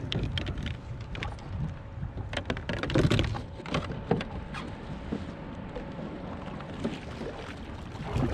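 Wind and water against a sit-on-top fishing kayak, with scattered knocks and clicks as a fishing rod and paddle are handled against the plastic hull, loudest about three seconds in. A faint steady hum runs underneath.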